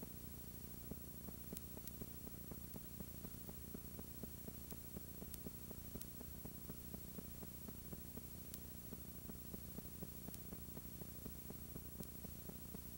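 Faint steady electrical hum with a fast crackle and a few sharp clicks over a light hiss: background noise of a blank stretch of recording.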